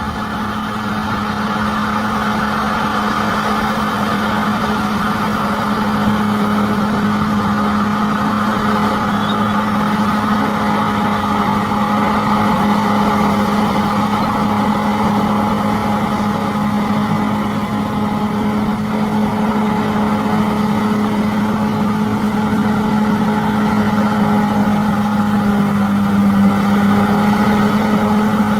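Bulldozer's diesel engine running steadily, a constant drone that holds one pitch throughout.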